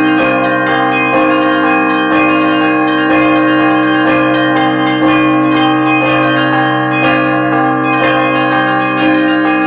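Russian Orthodox church bells in Easter ringing (perezvon). Several bells of different pitches are struck about once a second, their tones overlapping and ringing on, over a deep steady hum from a large bell.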